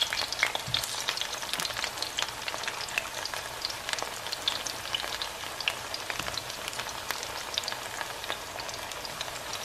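Breadfruit slices frying in a pan of hot oil: a steady sizzle full of small pops and crackles, which ease off slightly toward the end.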